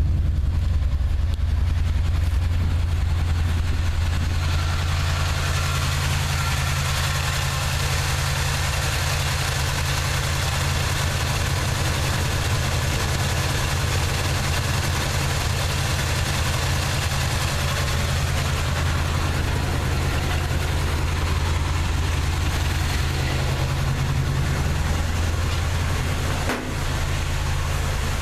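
1979 Chevrolet truck's 350 small-block V8 running steadily, the engine carrying a nagging misfire whose cause is being diagnosed. A brief dip in the sound comes near the end.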